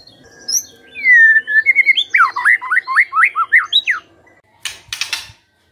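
White-rumped shama singing: a falling whistle, then a fast run of sharp up-and-down whistled notes. A short harsh, noisy rasp follows near the end.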